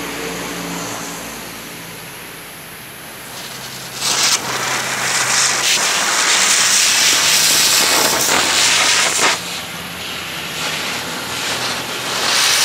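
Ground spinner firework (chakkara) hissing loudly as it whirls and sprays sparks. The hiss starts about four seconds in, after a quieter stretch while it is being lit, and dips briefly for a moment before carrying on.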